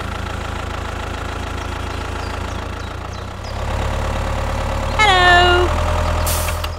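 Tractor diesel engine running with a steady chugging knock, getting louder about halfway through as the tractor drives off. A short pitched sound with several overtones comes about five seconds in.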